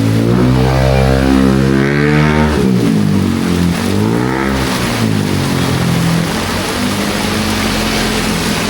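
A motor vehicle's engine revving and changing pitch as it drives past, its note rising and falling in the first half, over a steady hiss of heavy rain.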